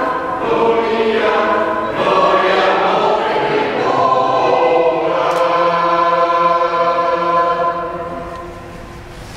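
Choir singing in several parts, with long held chords that change every second or two; the singing dies away about eight seconds in.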